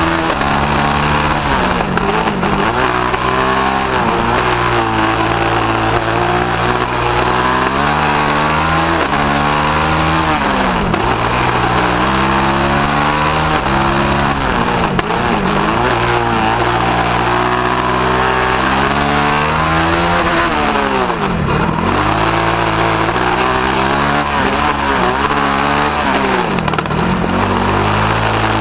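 The engine of a small single-seat open-wheel race car, heard from onboard on a hot lap. It revs up in rising sweeps and drops back again and again as the car accelerates, shifts and slows for corners, with its deepest drops near the end.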